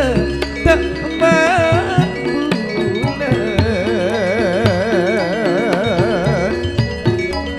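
Madurese gamelan music (gending): struck metallophones and drum strokes under a sustained melody. From about three seconds in, the melody is held with a wide, quick vibrato.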